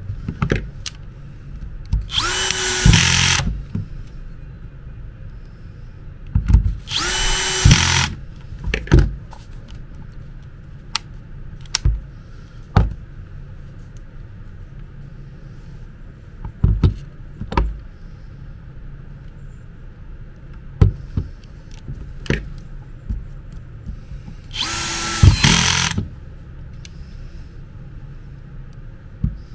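Makita DDF485 cordless drill-driver's motor and gearbox run in three short bursts of about a second each, each spinning up quickly and then holding a steady pitch. These are test runs after the gearbox has been refitted. Short clicks and knocks of the tool being handled come between the runs.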